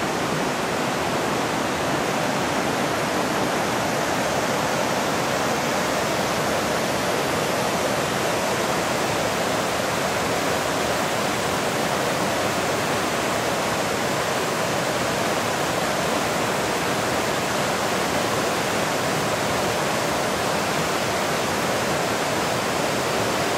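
Waterfall and the rocky stream below it, rushing water at a steady level.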